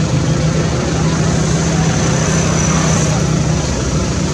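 An engine running steadily at idle: a constant low hum under a loud, even hiss.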